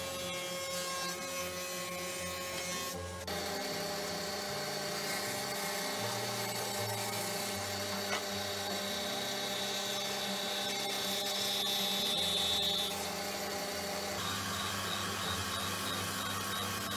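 Woodworking power tools running steadily, changing abruptly twice. First a thickness planer with dust extraction, then about three seconds in a bandsaw cutting wood, then near the end a belt sander.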